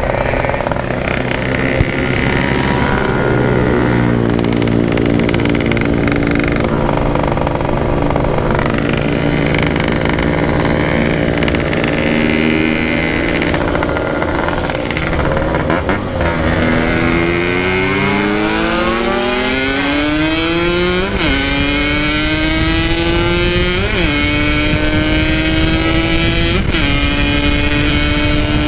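Yamaha RX-King two-stroke single running hard under the rider on a top-speed run. Its pitch holds fairly level for the first half, climbs steadily from about 16 seconds in, then holds high with three brief dips near the end.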